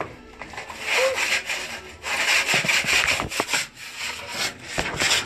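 Rough rubbing, scraping noise in uneven strokes, starting about a second in and dipping briefly near the middle.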